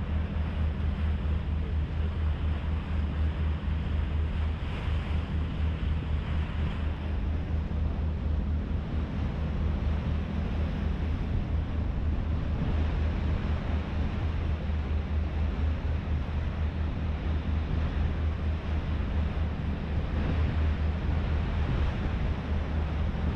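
Harbour ferry underway, its engine running with a steady low drone, under a steady rush of wind and water.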